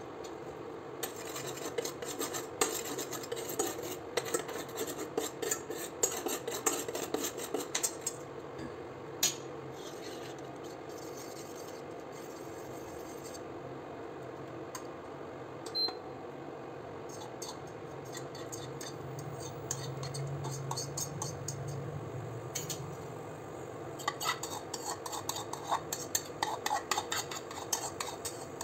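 Metal cutlery clinking and scraping against a bowl as a beaten egg and vegetable mixture is stirred and scraped out into a stainless steel pan. There are bursts of quick clinking in the first several seconds and again near the end, with quieter stretches between.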